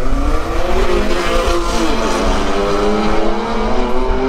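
Drag-racing car making a quarter-mile pass, its engine revving hard, with the pitch climbing, dipping and climbing again.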